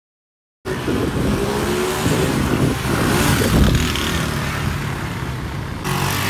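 Small commuter motorcycle's engine running and revving as the bike is ridden and its front wheel is lifted in a wheelie. The engine starts after a brief silence.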